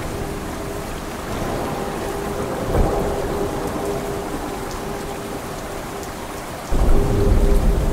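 Steady rain, with a low rumble of thunder swelling about three seconds in. A louder thunderclap breaks in suddenly near the end and rolls on.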